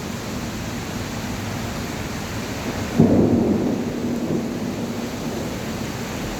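Heavy rain falling steadily, with a sudden low rumble of thunder about three seconds in that fades over the next second or two.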